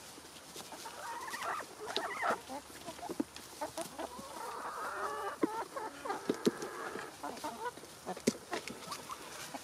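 Backyard chickens clucking in repeated short calls while they eat, with frequent sharp taps of beaks pecking at the food.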